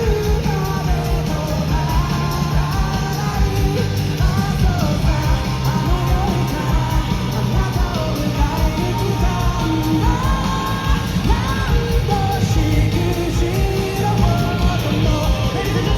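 Live J-pop rock band playing at full volume: a sung melody over drums, bass and guitar.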